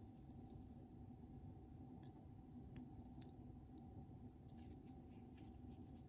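Near silence: a faint steady hum with a few scattered light clicks and small metallic ticks.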